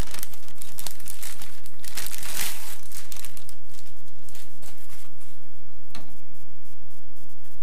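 Clear plastic packaging bag crinkling and rustling as a moulded base piece is pulled out of it, loudest about two to three seconds in and thinning afterwards, with a single sharp click later on.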